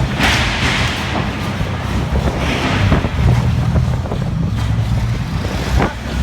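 Steady low engine rumble of a vessel in strong wind, with wind noise and scattered knocks over it.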